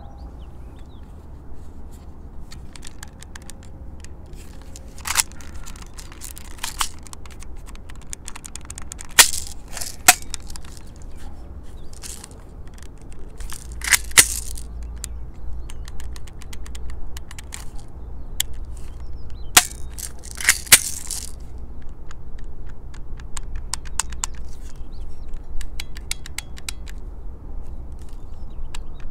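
Toystar Colt M1911A1 toy airsoft pistol being handled and worked: many light mechanical clicks, about six louder sharp snaps, and a longer rasping rack of the slide about fourteen seconds in, over a steady low rumble.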